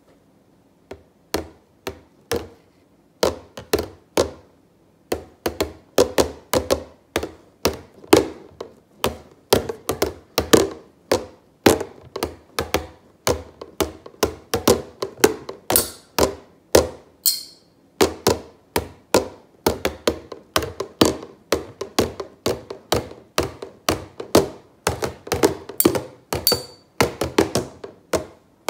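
Two metal spoons drumming a rhythm on a plastic mayonnaise squeeze bottle, a steady run of taps and thunks, several a second, starting about a second in. A few brighter, sharper clicks stand out around the middle and near the end.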